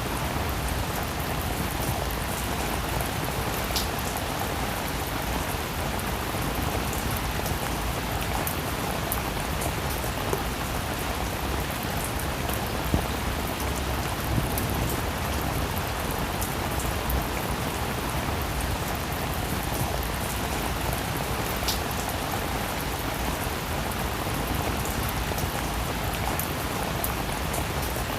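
Steady rain falling on a surface, a dense even hiss with scattered individual drop ticks.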